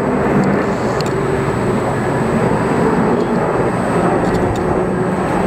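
Jet engines of an Airbus A380 passing overhead: a loud, steady drone of jet noise.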